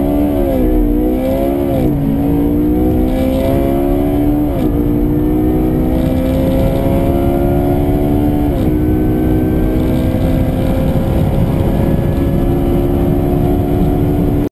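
Porsche 918 Spyder's V8 engine at full-throttle acceleration, its pitch climbing steadily through each gear and dropping at upshifts about two, four and a half and eight and a half seconds in.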